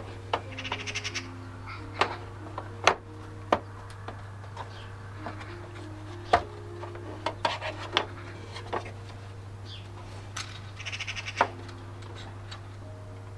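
Scattered clicks and knocks of hand tools working on a plastic bumper over a steady low hum. A bird's short chattering call comes twice, about half a second in and near the end.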